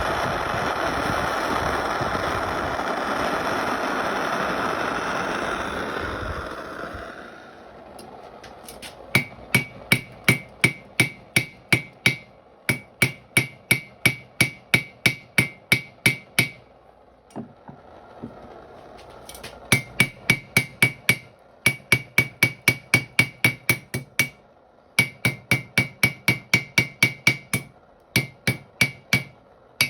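A hammer striking on a BKNS 25 kg London-pattern anvil during forging, about three blows a second in runs of several seconds with short pauses, each blow ringing with a clear metallic tone. Before the hammering starts, a loud steady noise fades out about seven seconds in.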